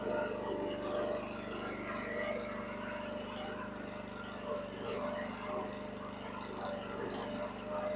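Huayee mini excavator's engine running steadily, with a steady whine above the engine note.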